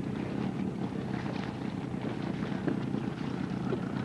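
Boat engine running steadily, a low even hum.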